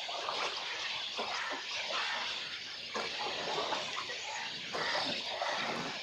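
Steady chatter and squawks from a colony of nesting waterbirds in the trees, many short calls overlapping, with water sounds mixed in.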